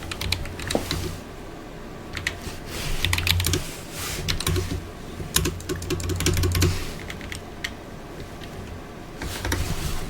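Computer keyboard being typed on, rapid key clicks in several bursts with short pauses between them.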